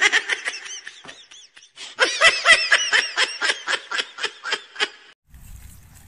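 Two runs of rapid, high-pitched laughter, about five pulses a second. The second run is longer and louder. A faint low rumble follows near the end.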